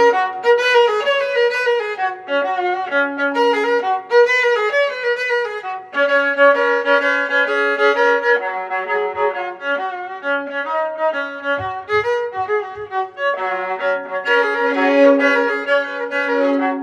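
Background music led by violin: a melody over a held low note, playing steadily without a break.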